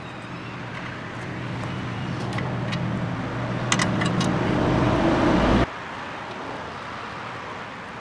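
A motor vehicle engine running with a steady low hum that grows louder and then cuts off suddenly about two thirds of the way in. A few light metallic clinks sound around the middle.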